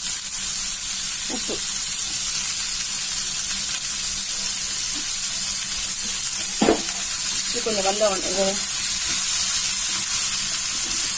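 Sliced onions and green chillies frying in oil in a kadai, a steady sizzle, being sautéed to soften, with a wooden spatula stirring them. One sharp knock about six and a half seconds in.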